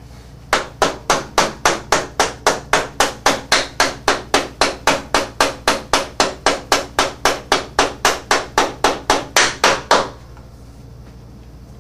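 Ratchet wrench turning a frame slider bolt on a Ducati Monster 620 with quick short back-and-forth strokes: an even run of sharp ratcheting clicks, about three a second, that stops about ten seconds in.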